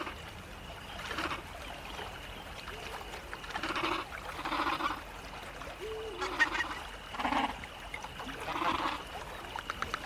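Imagined calls of feathered raptor-like dinosaurs, made by sound design: about seven short calls, roughly one a second, over a steady high tone and forest ambience.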